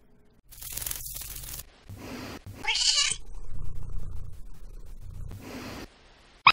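A recorded cat meowing once, a little under halfway through, played back as a sound effect for the cat in the painting, with stretches of steady hiss-like noise before and after it.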